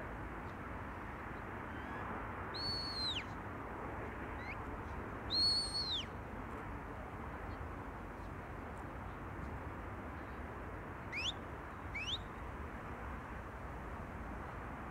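Sheepdog handler's whistle commands to a working Border Collie. Two held notes that rise and fall, about three seconds apart, are followed past the middle by two quick rising whistles about a second apart, over a steady outdoor background hiss.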